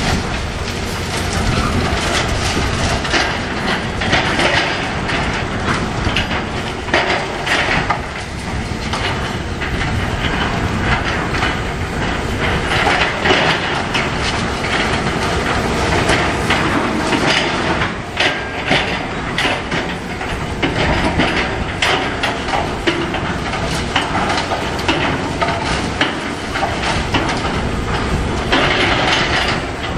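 Excavator demolishing a concrete building: the machine's engine running steadily under irregular clanking and crunching as its bucket works into broken concrete, rebar and falling debris.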